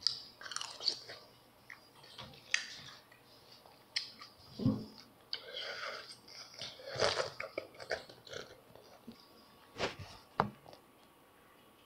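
Close-up, open-mouthed chewing of crunchy frosted flakes cereal with milk, in irregular crunchy bursts, with a few sharp clicks near the end. The eating is sloppy and noisy enough to be called eating like a pig.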